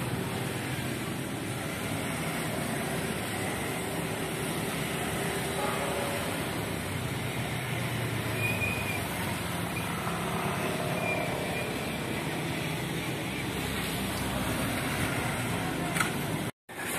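Steady road-traffic noise with vehicle engines running. It cuts out briefly near the end.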